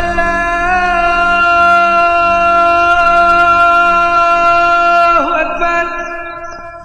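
Background music holding one long note, steady for about four seconds, then sliding down in pitch and fading out.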